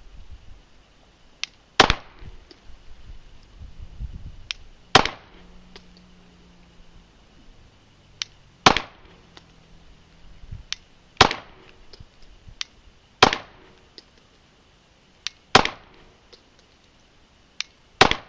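Glock 17 9mm pistol fired seven times in slow, aimed single shots, about two to three seconds apart, each a sharp crack.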